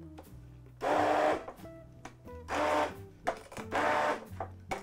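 Electric immersion blender run in three short pulses of under a second each, chopping grated fresh coconut flesh in hot water into a wet mush for coconut milk.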